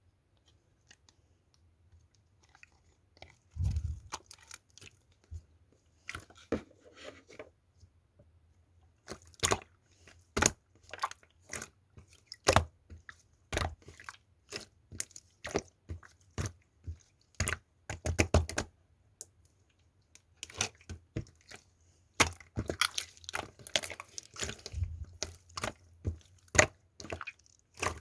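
Clear slime full of glass-shard-like crunchy pieces being squished and pressed, giving irregular sharp crackles, crunches and pops. Quiet for the first few seconds, then coming thick and fast from about a third of the way in.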